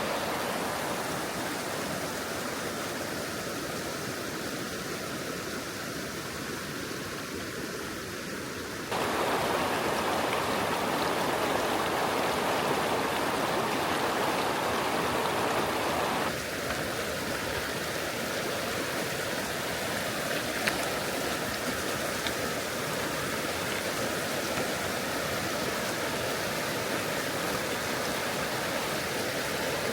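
River water rushing steadily over rocks. It jumps louder abruptly about nine seconds in and drops back a little around sixteen seconds.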